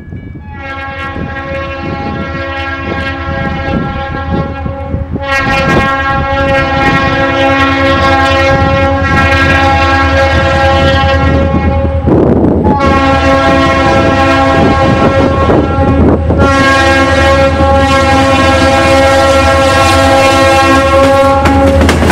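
Leslie RS-3L three-chime air horn on a CF&E GP40-2 diesel locomotive, sounding a series of long blasts for a grade crossing as the train approaches. The first blast is fainter; the horn breaks briefly about five, twelve and sixteen seconds in. Beneath it the locomotive's rumble grows steadily louder as the train nears and reaches the crossing.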